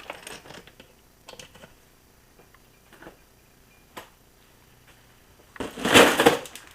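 Handling noise: scattered light clicks and rattles, then a loud scraping rustle lasting about a second near the end.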